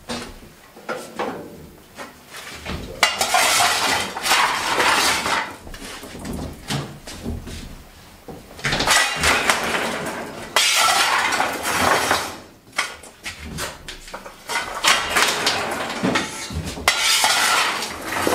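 A coal shovel scraping and clattering as coal is shovelled from the stokehold floor into a steamship boiler's furnace, in three long bouts with short pauses between: the fire being laid to start the cold boiler.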